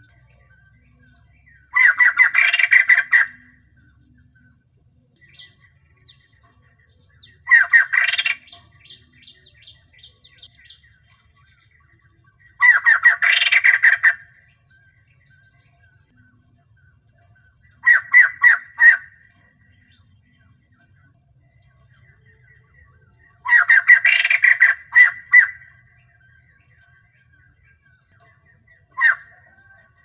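Female white-crested laughingthrush calling in loud bursts of rapid, stuttering notes, each lasting one to two seconds and coming about every five seconds, with a short burst near the end.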